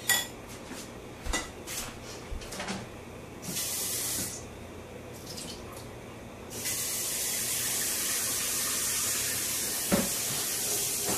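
Kitchen tap running: a short spell of running water about three and a half seconds in, then the tap is turned on and runs steadily from about six and a half seconds in. A few light clicks and knocks of kitchen utensils come in the first few seconds.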